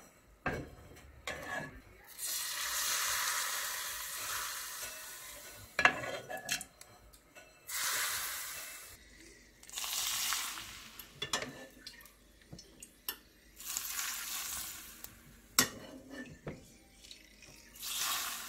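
Hot oil sizzling as it is ladled over chopped spring onions to make scallion oil, in about five hissing bursts that each fade away over a second or two. A few sharp clinks of the metal ladle come in between.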